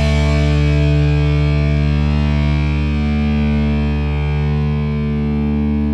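Intro music: one distorted electric guitar chord held and ringing on.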